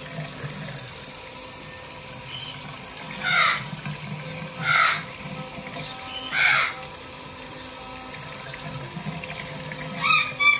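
Parrot giving short, loud squawks, five in all, spaced a second or more apart, with the last two close together near the end, over a steadily running water tap.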